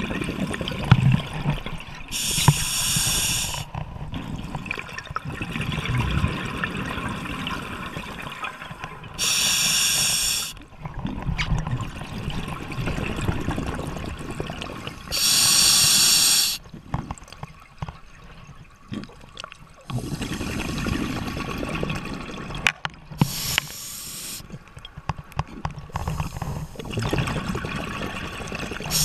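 A scuba diver breathing through a regulator, heard underwater: a loud hiss every six to seven seconds, with bubbling and gurgling exhalations in between.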